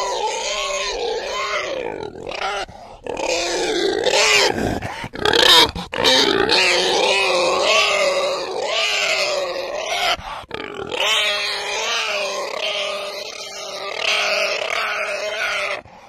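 Domestic pigs grunting and squealing almost without pause, in wavering, drawn-out calls with a few short breaks; the loudest, shrillest call comes about five seconds in.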